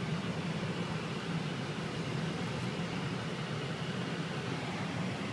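Steady engine and road noise of a car driving, heard from inside the cabin, with a constant low hum under an even hiss.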